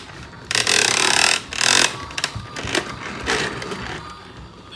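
Playskool Dusty toy vacuum making its noises: a loud hissing whoosh about half a second in and a shorter one just before two seconds, then quieter plastic rattling and clatter.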